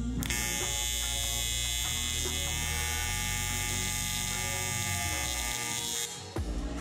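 AC TIG welding arc on aluminum sheet, a steady loud buzz that strikes just after the start and cuts off about six seconds in.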